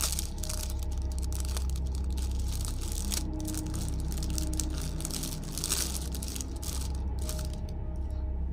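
Packaging being torn and unwrapped by hand: irregular rustling and crinkling with small clicks, loudest about three and six seconds in, over a steady low hum.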